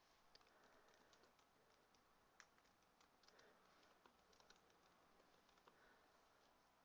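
Faint typing on a computer keyboard: a scattering of soft, irregular key clicks.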